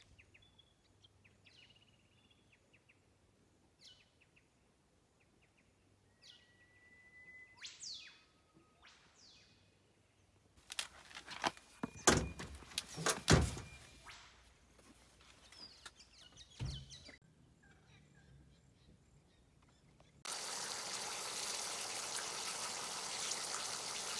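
Faint bird calls, then a run of loud knocks and clatter around the middle, a single thump a little later, and for the last few seconds a steady, even hiss that starts abruptly.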